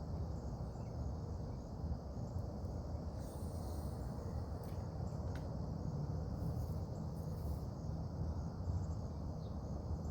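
Steady chorus of insects, a continuous high buzz, over a constant low rumble.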